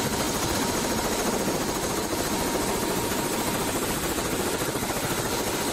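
Light turbine helicopter running on the ground with its main rotor turning: a steady engine and rotor noise with a rapid blade beat and a thin steady whine.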